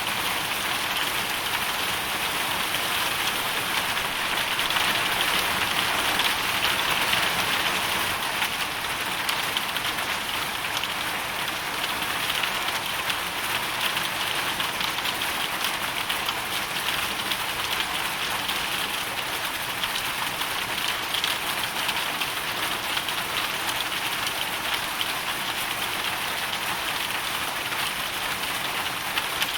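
Hailstorm: a dense, steady patter of hail and rain striking a surface, swelling slightly a few seconds in.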